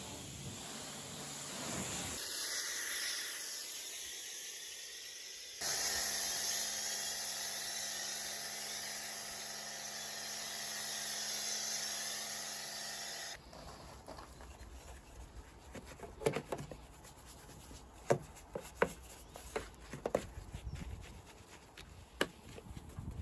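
Pressure washer spraying water with a loud hiss. After a cut, a foam lance on the pressure washer sprays snow foam with a steady hum from the pump under the hiss, for about eight seconds. From about halfway through, the spray stops and a soft detailing brush scrubs around a wet fuel filler cap, with scattered sharp clicks and taps.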